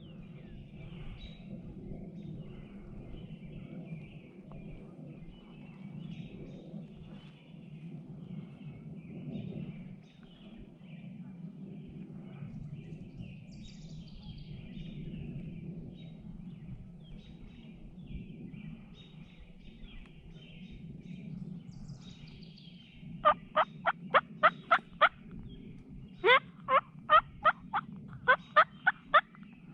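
Songbirds chirping over a steady outdoor hum, then near the end three loud, close runs of turkey calling, each run five to eight sharp falling notes about a quarter second apart.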